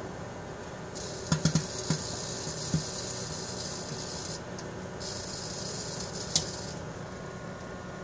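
Microwave oven running with a steady hum while butane lighters burn inside it: two spells of hissing from the burning gas, with sharp pops and crackles, a quick cluster of them about a second and a half in and single ones later.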